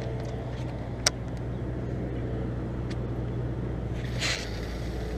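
A steady low motor hum, with one sharp click about a second in and a brief rushing noise just after four seconds.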